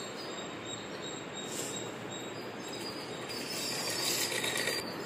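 Black straight-stitch sewing machine running steadily as fabric is fed under the needle, a continuous rapid rattle that grows briefly brighter and louder about three and a half seconds in.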